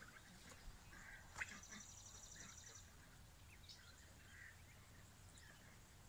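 Faint, distant quacking and calling from a flock of domestic ducks and geese, with a short high trill about two seconds in.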